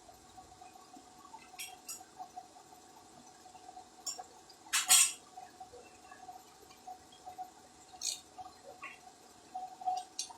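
Scattered light clicks and clinks, one sharper and louder than the rest a little under halfway through, over a faint steady hum.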